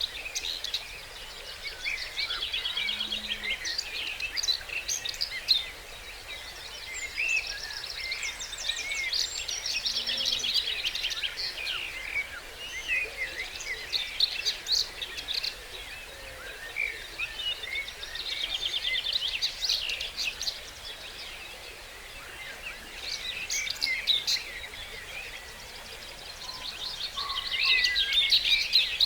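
Dawn chorus of several songbirds singing over one another. One loud, fast trilling song recurs four times, every several seconds. Underneath is a faint steady hiss.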